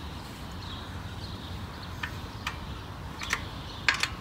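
Several light, sharp metallic clicks, spaced irregularly and loudest near the end, from a hand tool working the screws that hold a motorcycle radiator guard as they are tightened.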